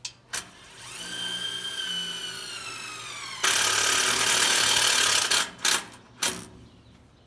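A decade-old cordless impact gun whines as its motor spins up for about two seconds. It then switches suddenly to a loud hammering for about two seconds as the impact mechanism engages on a screw, followed by three short trigger bursts.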